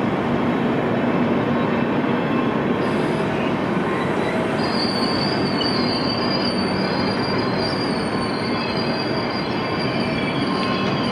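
Train rolling past on the track with a steady running noise; a high, steady wheel squeal joins a little before halfway through.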